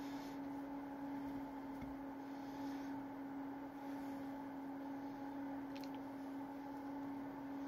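A steady hum at one constant pitch with fainter overtones, holding level throughout, with a couple of faint clicks about six seconds in.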